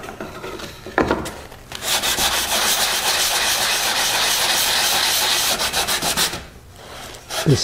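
A knock about a second in, then sandpaper rubbed by hand in quick strokes along the edge of a wooden box for about four seconds, rounding over the sharp edges. The rubbing stops about a second before the end.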